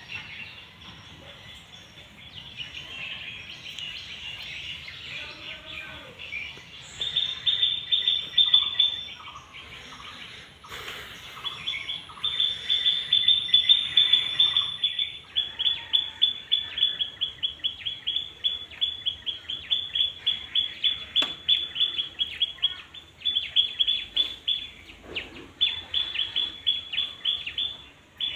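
Birds chirping in long runs of quick, high repeated notes, about four a second, with a short pause partway through.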